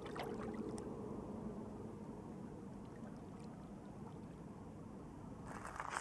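Steady low rushing background noise. A few faint metallic clicks come in the first second as a tool of a Victorinox Forester Swiss Army knife is pried out. Near the end there is a short burst of crackling rustle.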